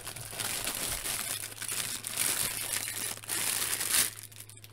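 Clear plastic bags crinkling as hands handle and lift out bagged plastic kit parts, with louder crinkles now and then. A faint steady low hum lies under it.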